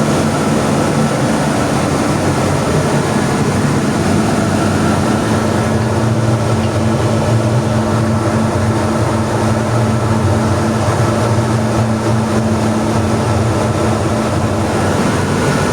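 Steady, loud drone of running machinery with a low hum, one of its tones dropping out near the end.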